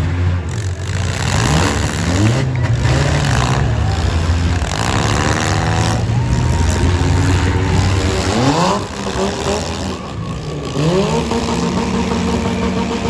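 Four-cylinder demolition derby car engines running hard, with pitch rising as they rev up twice, about two-thirds of the way through and again near the end.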